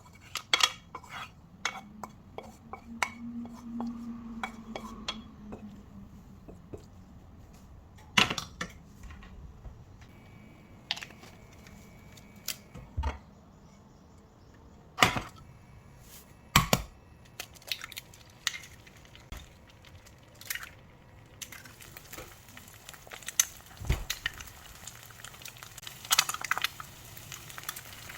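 Kitchen clatter of dishes and utensils: a string of sharp clinks and knocks from cutlery and pans being handled. Near the end a steady sizzle starts as food begins frying in a pan.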